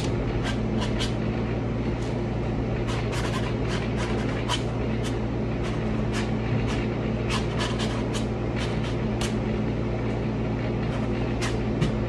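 Window air conditioner running with a steady low hum, with short, sharp ticks over it at irregular moments, a few a second.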